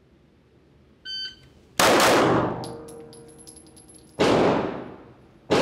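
A shot-timer start beep about a second in, then a customized Gen 5 Glock 34 9mm pistol with a ported slide firing three single shots, about 2 s in, about 4 s in and at the very end. Each shot rings out with a long echoing decay off the walls of an indoor range.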